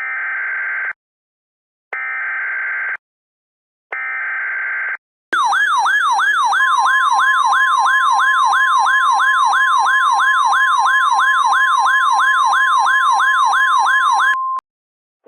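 Emergency Alert System tornado-warning opening: three one-second bursts of buzzy digital SAME header data, each followed by a short gap. Then the attention signal: a siren-like tone warbling up and down about three times a second, joined after about a second by the steady 1050 Hz weather-radio alert tone. Both cut off together near the end.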